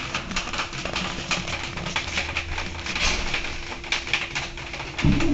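Mercedes-Benz Citaro city bus idling at a standstill: a steady low engine hum with a fast, irregular stream of light clicks and ticks. About five seconds in, a much louder, deeper engine sound cuts in suddenly.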